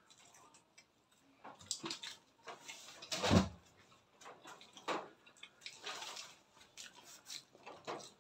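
Wet mouth sounds of people eating by hand: chewing and lip smacks with scattered small clicks, and one louder knock about three seconds in.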